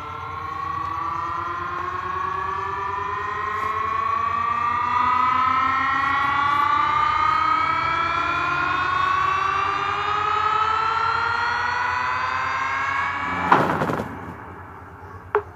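A long siren-like synth tone with many overtones, rising slowly and evenly in pitch, played from a phone through a pair of woofers driven by a small PAM8610 amplifier board. It ends with a short loud hit a little before the end.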